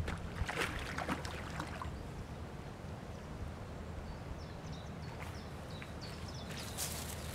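Faint outdoor ambience: a low, steady wind rumble with scattered short rustles near the start and near the end, and a few brief high bird chirps about five seconds in.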